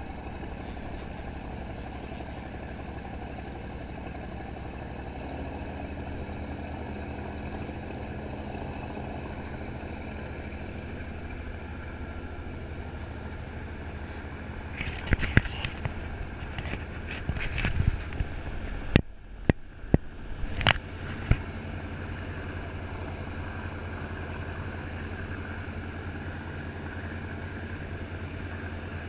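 Powerboat engine running steadily with a low hum, heard from on board. About halfway through comes a short run of sharp knocks and crackles.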